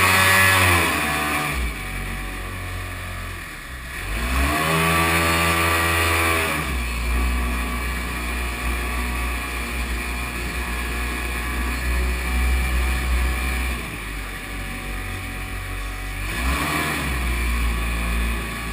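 Kawasaki 750 two-stroke jet ski engine driving a jet boat, its note falling at the start, climbing about four seconds in and dropping back near seven seconds, then swelling again near the end as the throttle is worked, over the rush of water.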